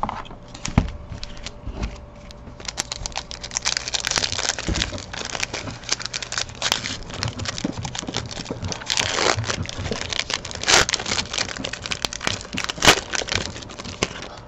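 Foil trading-card pack wrapper crinkling and tearing as the pack is ripped open and the cards are pulled out: a dense run of crackles, louder in a few bursts in the second half.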